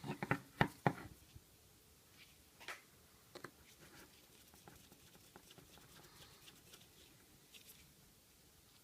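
Handling noise on a workbench: a quick run of sharp clicks and knocks in the first second, then faint, scattered small ticks and taps.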